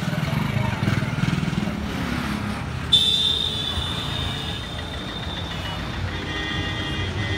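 Road traffic with vehicle engines running. A vehicle horn sounds suddenly about three seconds in and fades over a second or so, and another horn sounds near the end.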